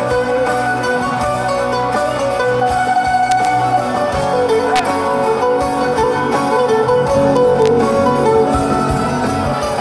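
Live band playing an instrumental passage between sung verses of a Greek pop song, with a plucked-string lead carrying the melody over drums and bass.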